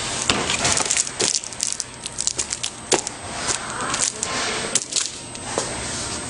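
Irregular sharp crackles and clicks of plastic shrink film being handled and crinkled, over a low steady hiss.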